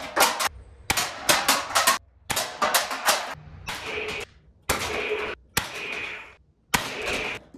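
Toy foam-dart blaster firing repeatedly: a rapid run of sharp cracks, close together at first and then more spaced out, as darts strike and knock over aluminium drink cans.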